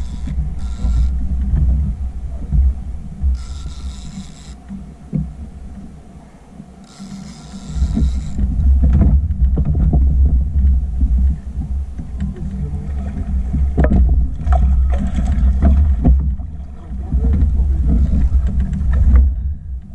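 Low, uneven rumble of wind and water around a small inflatable boat, buffeting the camera's microphone, with scattered knocks and splashes as a fish is played alongside the hull.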